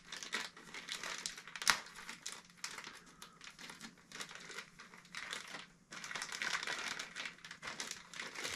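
Small plastic packet crinkling and crackling as it is opened by hand and the contents are pulled out, with one sharp crackle about two seconds in and a short pause near six seconds.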